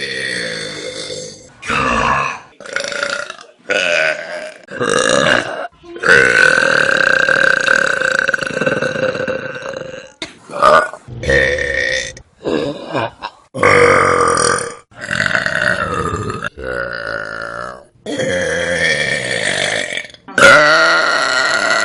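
Loud human burps, one after another in quick succession, around fifteen in all. The longest is one drawn-out burp about six seconds in that lasts some four seconds.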